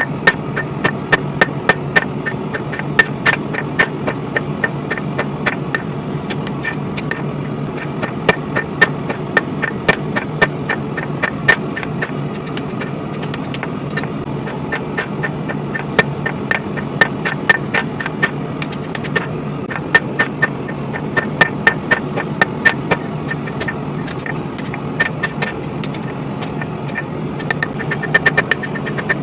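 Hammer blows on hot spring steel over an anvil, several a second in irregular runs with short pauses, each strike ringing at a few bright high pitches, as the blade is flattened out. A steady low drone sounds underneath.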